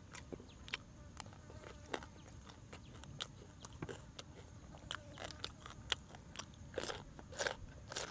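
Close-up eating sounds: crisp crunches and chewing of dried grilled mouse meat, in quick irregular clicks. Near the end comes a louder run of crunches as a fresh cucumber slice is bitten.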